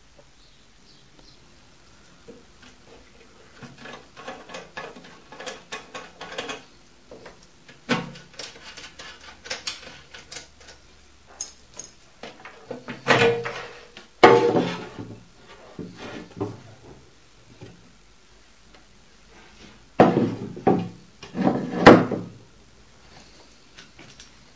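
Metal tools and parts being handled on a workbench by the lathe: a run of light clicks and clinks, then louder knocks and clanks in two clusters, about halfway through and again near the end.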